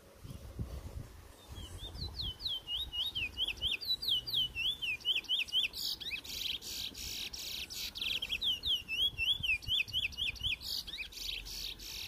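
Caged Trinidad bullfinch (chestnut-bellied seed finch) singing: a rapid run of quick downward-sliding whistled notes, broken from about halfway by harsh buzzy trills, with another buzzy burst near the end.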